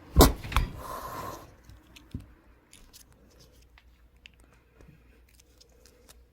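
A frightened feral cat hissing and striking out: two sharp thumps near the start, with a hiss trailing off at about a second and a half, then only faint scattered clicks.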